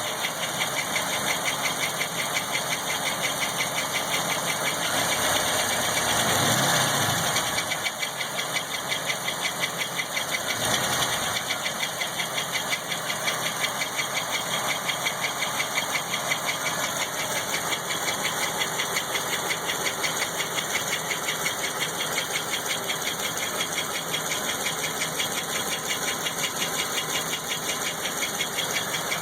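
GM LT1 V8 engine idling with a fast, even tick-knock of unknown cause, blipped in two small revs about five and ten seconds in.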